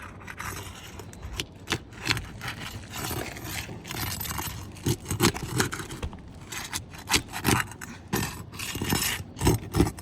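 Asphalt roof shingles being pried up and lifted loose by hand: irregular scraping and crackling, with sharp snaps, especially in the second half.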